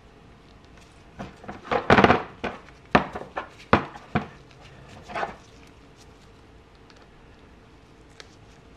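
Clicks, taps and scrapes of a 2014 Suzuki GSX-R750 front brake master cylinder being handled in gloved hands while a circlip is worked off it. A flurry of sharp clicks from about one to five and a half seconds in, loudest around two seconds, with single sharp clicks near three and four seconds.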